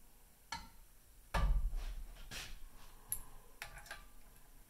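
Clicks and knocks from an outboard propeller and its prop nut being handled and turned to line up the cotter-pin hole. There are several separate sharp clicks, with one heavier knock about a second and a half in.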